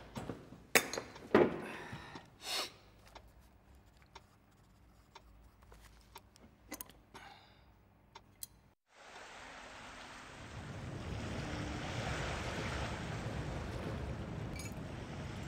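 Small clicks, knocks and clinks of objects handled on a cluttered workbench, loudest in the first few seconds, some ringing briefly. After a sudden cut about nine seconds in comes a steady rushing outdoor ambience of wind and river water at the shore, growing louder a second or so later.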